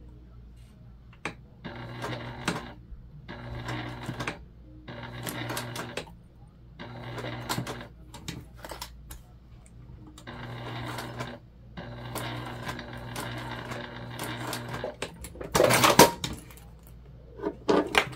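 Electric sewing machine topstitching vinyl, running in short bursts of one to three seconds with pauses between them. Near the end comes a louder rustle and knocks as the vinyl piece is handled and pulled out from under the presser foot.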